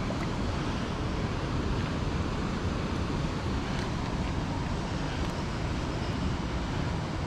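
Steady rushing noise of water pouring through a spillway, with no change in level.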